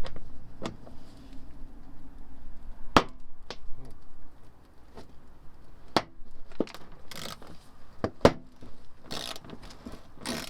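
Scattered sharp clicks and knocks of hand tools and plastic fasteners as a car's wheel arch liner is being unbolted, with a few short rustles in the last few seconds.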